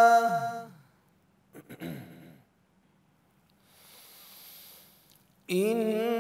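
A Quran reciter's chanted note ends with its pitch sliding down. After a pause with a few mouth clicks and a short low sound, he draws a long, audible breath, then resumes chanting on a held note near the end.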